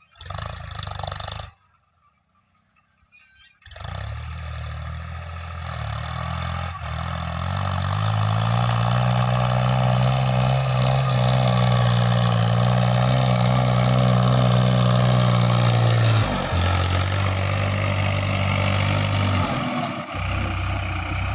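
Diesel tractor engine running steadily, after a short break of near silence about two seconds in. Its pitch drops slightly a little past the middle.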